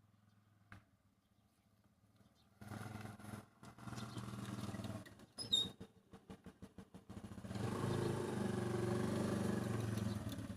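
An engine being cranked on its starter in several attempts, with a short squeak partway through and a longer crank near the end; the engine won't start.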